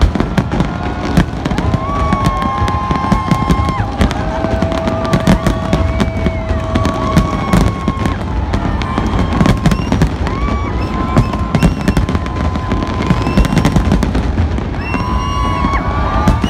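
Aerial fireworks shells bursting in a dense, continuous barrage of bangs and crackling, with a low rumble beneath. Several long, steady tones ring out above the bangs, each held for a second or more.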